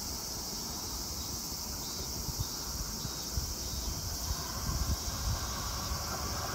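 Wind buffeting the microphone and a steady high insect chorus, with the faint rumble of an approaching E3 series Shinkansen train growing louder over the last few seconds.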